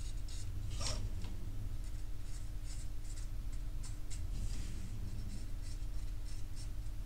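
A small hand knife scraping the edge of a hard plastic model part in short, irregular scratchy strokes, trimming off a protruding lip, over a steady low hum.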